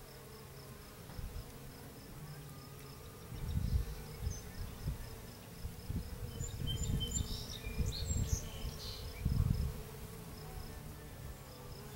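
Bees buzzing among catmint flowers, swelling louder a few times as they fly close by. A faint high chirp repeats evenly through it, with a few short high chirps in the middle.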